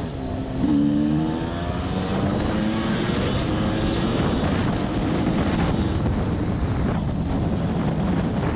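Off-road rally vehicle's engine accelerating under load: its pitch climbs steadily for a few seconds after about a second in, over a constant rumble of wind and rough ground.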